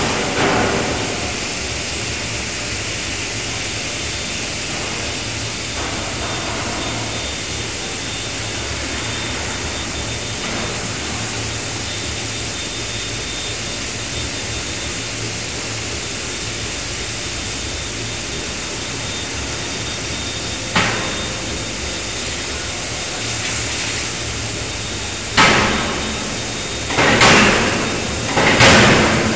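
Steady machine hum of a running 5-ton electro-hydraulic die forging hammer and its shop. About twenty seconds in comes one sharp blow, then near the end three heavy hammer blows about a second and a half apart, each ringing out as the ram strikes hot steel in the closed die.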